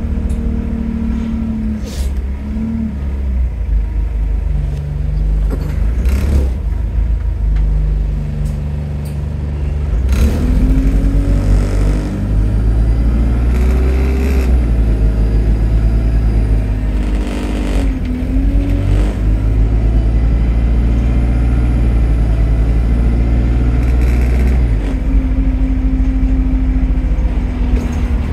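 A bus's diesel engine heard on board, running lower at first, then pulling away about ten seconds in and staying under load with its pitch shifting, with a few short sharp rattles or hisses along the way.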